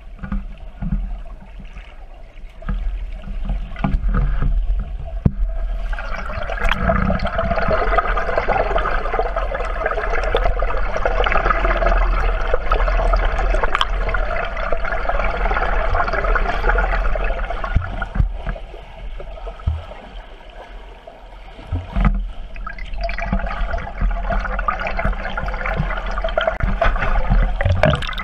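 Underwater pool sound from a submerged camera: a gurgling, churning water noise as a swimmer kicks through the water, over a steady low hum. It grows louder about six seconds in and drops away briefly near twenty seconds.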